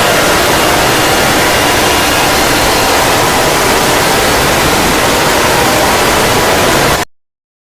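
Loud, hissing static-like noise with a few faint steady tones buried in it, cutting off abruptly about seven seconds in.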